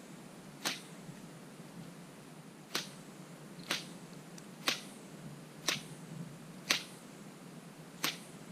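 Seven short, sharp clicks, mostly about a second apart with one longer gap near the start, over a faint steady background hum.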